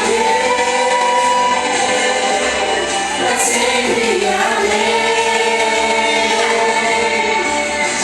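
A worship vocal group singing together in a gospel style, drawing out long sustained notes.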